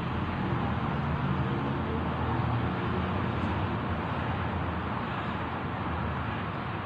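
Steady background rumble and hiss of vehicle noise.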